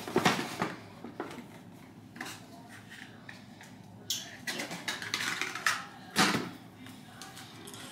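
Makeup bottles and containers being handled and set down: scattered clicks, taps and short rustles, with a sharper knock about six seconds in.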